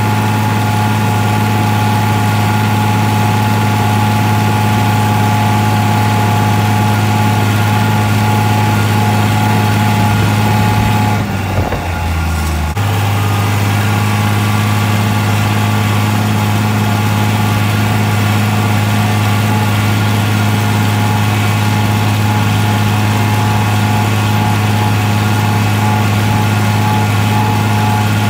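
Farm tractor engine running at a steady speed, heard from the operator's seat. About 11 seconds in there is a brief break of a second or so where the tone shifts, then the same steady running resumes.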